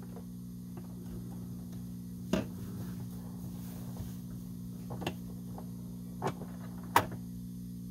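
Turntable playback after the 45 rpm single has finished: a steady low electrical hum with a few scattered clicks, the last and loudest near the end.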